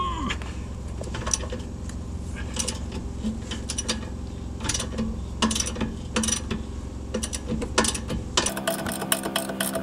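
Socket ratchet wrench clicking in short runs as it is swung back and forth, loosening the rear shock's lower 18 mm bolt, over a steady low hum. Near the end the clicking turns into a fast, even run.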